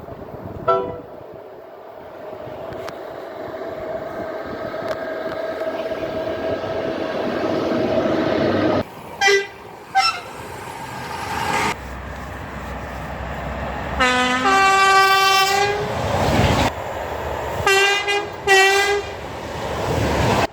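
British trains sounding two-tone horns in a string of cut-together clips: a short blast near the start, a train's rumble building as it approaches, then several short blasts and one longer blast that steps from a low note to a higher one.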